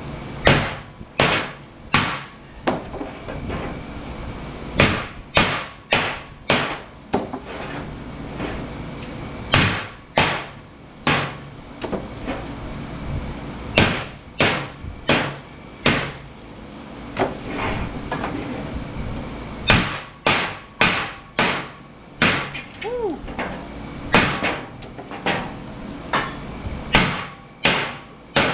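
Hammer blows on metal, a long run of sharp strikes at about one to two a second in small groups with short pauses: transformer cores from light ballasts being knocked apart to get at the copper windings.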